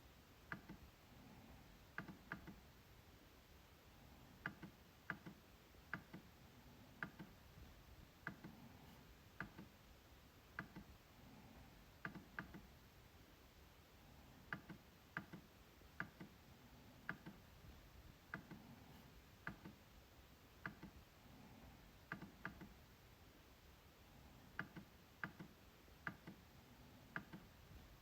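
MacBook trackpad being clicked: sharp, light clicks at an uneven pace of about one or two a second, often in quick pairs, with short pauses between runs.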